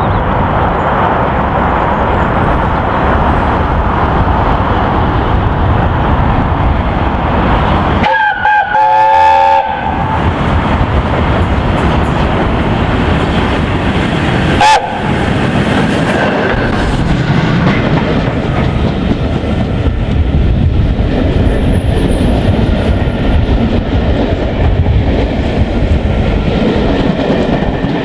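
Peppercorn A1 Pacific steam locomotive 60163 Tornado and its train running at speed, wheels clattering over the rail joints. About eight seconds in it gives a multi-tone whistle blast lasting about a second and a half, with a short blip about six seconds later.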